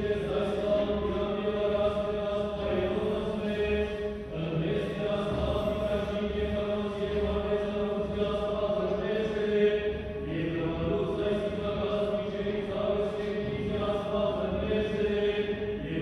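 Choir chanting an Armenian church liturgical hymn, several voices holding long notes and moving to new ones every few seconds.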